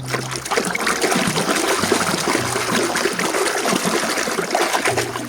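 Water pouring and splashing over a muddy toy vehicle as it is rinsed clean: a steady rush flecked with small splashes and clicks.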